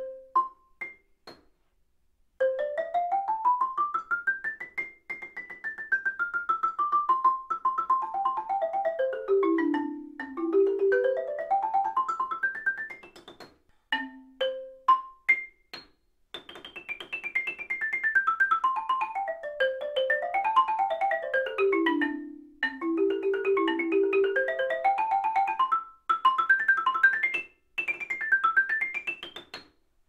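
Xylophone played in fast scale runs that climb and fall across its range. The first half is played with Deschler Medium 115 5 mallets; after a short break with a few single notes about halfway through, the runs go on with IP RS301 hard mallets.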